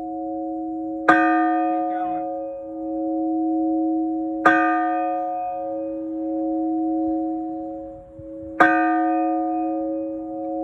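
A large cast church bell, the parish's 1842 bell, struck three times about three to four seconds apart. Each strike is a sharp clang that rings on into a long, steady low hum, which slowly swells and fades between strikes.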